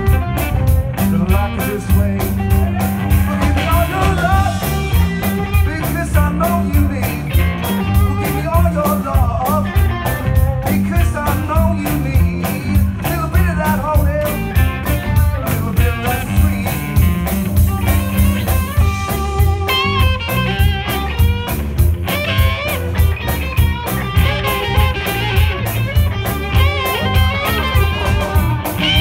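Live band playing amplified music: electric guitars, bass guitar and drum kit with a steady beat.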